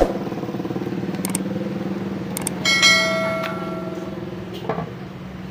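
A steady engine-like drone, with a metal object struck once about two and a half seconds in, ringing like a bell for about a second before fading.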